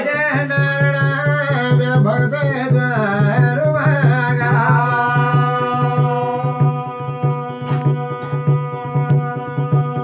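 Garhwali jagar music: a man's voice singing a bending, ornamented line over a steady held drone, with a rope-laced wooden hand drum beating a regular pulse. The singing is strongest in the first half and thins out after about five seconds, while the drum and drone carry on.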